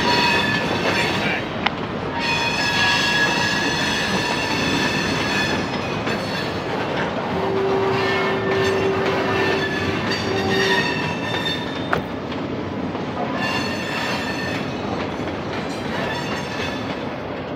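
Freight train of autorack and gondola cars rolling slowly past, a steady rumble of steel wheels on rail. High-pitched wheel squeal comes and goes several times, loudest a couple of seconds in and again past the middle.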